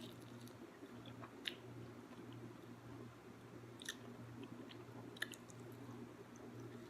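Close-up chewing of chicken wings and cheese fries, with a few sharp mouth clicks, over a low steady hum.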